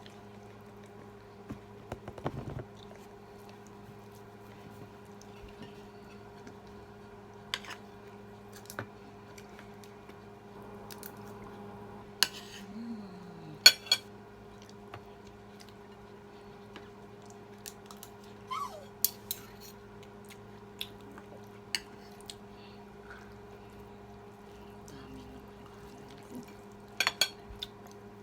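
Cutlery clicking and clinking against a plate and dishes while eating, in scattered sharp strikes. Under the clinks runs a steady low electrical hum.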